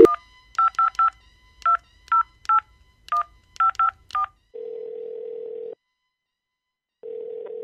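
Touch-tone telephone keypad dialing a number: about ten short two-tone beeps in uneven groups. After the dialing, the ringback tone of the call rings twice, the second ring starting near the end.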